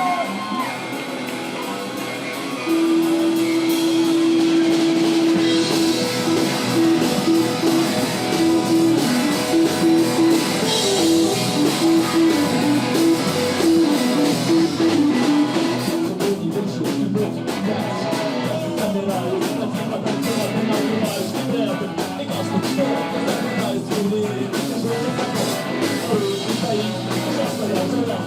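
Rock music with electric guitar and a drum kit. About three seconds in it gets louder, with a held note that breaks into a fast repeating riff.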